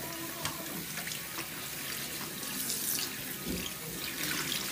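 Water running from a tap into a sink during face washing, a steady rush with short irregular splashes.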